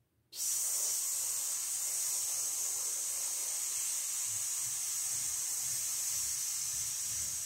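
A man's long, slow exhalation hissed out through the mouth at a steady level: a controlled breath-support exercise, the air let out a little at a time. It starts abruptly a moment in and holds without a break.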